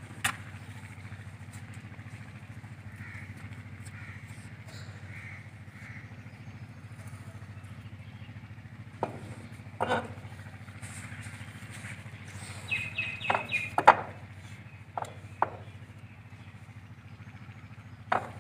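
Matches struck against a matchbox to light a wood stove: scattered short scratches and clicks, with a quick run of strikes a little past the middle. A steady low mechanical drone runs underneath.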